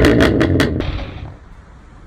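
BMW M2 Competition's S55 twin-turbo straight-six through an aftermarket exhaust, coming off a rev with a few sharp exhaust pops. It then drops back to a quiet, low idle rumble about halfway through.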